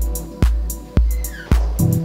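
Electronic background music with a steady kick drum beat, about two beats a second, over deep bass and sustained notes.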